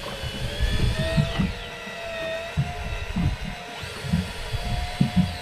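A motor whining steadily, its pitch sliding down and back up, over irregular low thumps.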